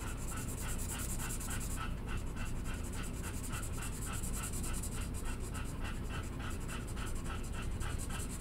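Felt-tip marker scribbling on paper in quick, even back-and-forth strokes, about five a second, as an area is coloured in.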